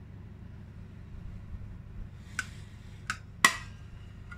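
Metal cigarette case clicking as it is handled: three sharp clicks about half a second apart, the last the loudest with a brief metallic ring, over a steady low hum.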